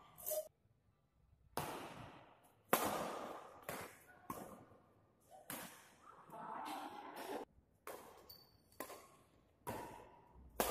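Badminton rackets striking a shuttlecock in a rally: sharp hits about once a second, each trailing off in the echo of a large hall.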